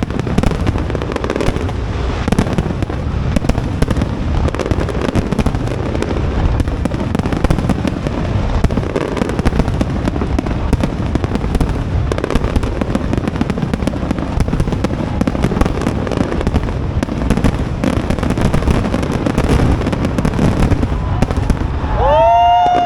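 Fireworks display: a rapid, continuous barrage of crackling and banging shell bursts. Near the end, a loud whistle-like tone rises and then holds for about a second.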